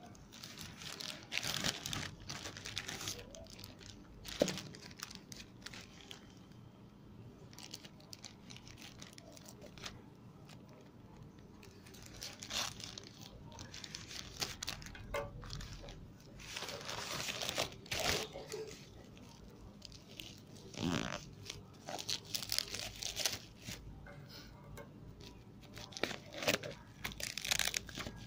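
Thin plastic courier mailer bag being torn open and handled: crinkling and tearing plastic in irregular bursts.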